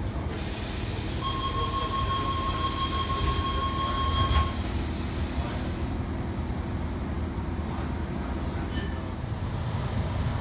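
Tangara train door-closing warning tone, a steady beep lasting about three seconds. It is followed by the passenger doors shutting with a knock, over the low hum of the stationary train.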